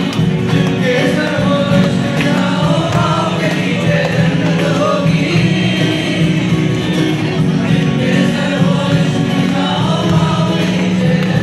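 A mixed group of young men and women singing together into microphones, with an acoustic guitar accompanying them.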